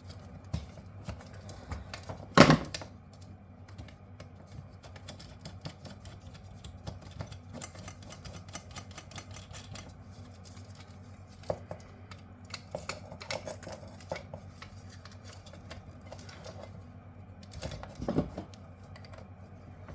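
Small clicks and rattles of hand tools and metal parts being handled while a backup power supply unit is taken apart for scrap, with one loud clunk about two and a half seconds in and a couple of lighter knocks later.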